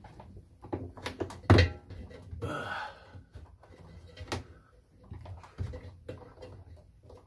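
Hands working a rubber bellow gasket onto the rim of a front-load washer's tub opening: scattered knocks and rubbing. There is a sharp knock about one and a half seconds in, a short scraping rub just after, and another knock a little past four seconds.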